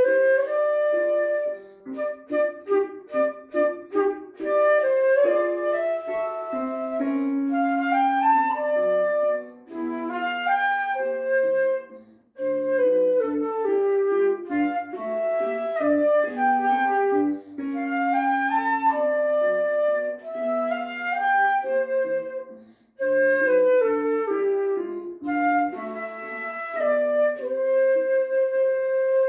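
Concert flute playing a light, playful melody: a run of short detached notes at first, then flowing phrases with rising runs, breaking off briefly twice between phrases.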